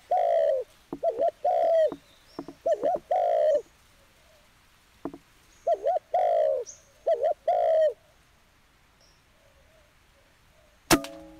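Dove cooing in repeated phrases of short bent notes, about five bursts in the first eight seconds. Near the end comes a single sharp shot from a PCP air rifle with a brief metallic ring after it.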